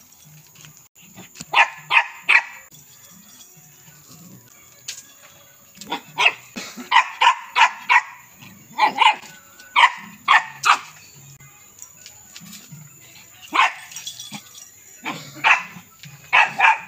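Small shih tzu dog barking in bursts of short, sharp, high barks, three quick ones early, then a long run of barks in the middle and more near the end.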